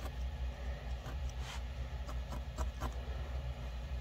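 Soft, short ticks of a felting needle stabbing into wool, about six of them between one and three seconds in, over a steady low hum.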